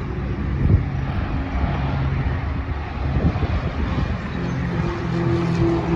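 Airliner passing on its landing approach: a steady rush of jet engine noise over a low hum, with a higher steady engine tone joining a little after four seconds in.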